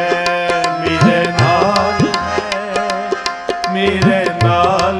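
Tabla and harmonium accompaniment of Sikh kirtan: tabla strokes, with the bass drum's notes sliding up in pitch several times, over the harmonium's held notes.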